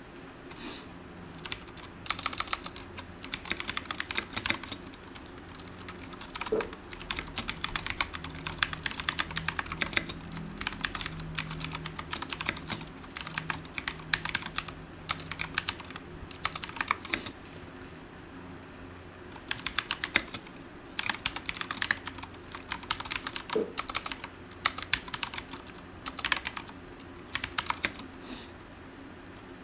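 Typing on a Ducky One TKL mechanical keyboard with clicky Cherry MX Blue switches: rapid runs of sharp key clicks, broken by a couple of short pauses.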